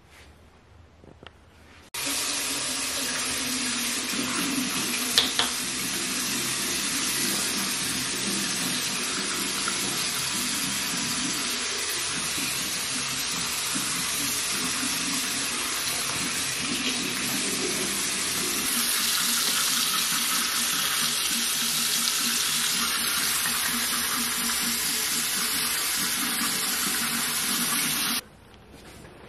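Sink tap running in a steady stream: turned on about two seconds in and shut off suddenly near the end, with a brief knock about five seconds in.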